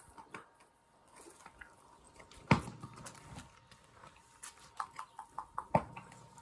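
Horse chewing and mouthing a freshly fitted metal bit: a string of short clicks and clinks, with a louder thump about two and a half seconds in and another sharp knock near six seconds.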